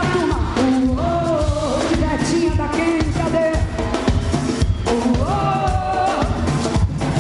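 Live axé band music with heavy drums and percussion keeping a dense beat under a voice singing the melody.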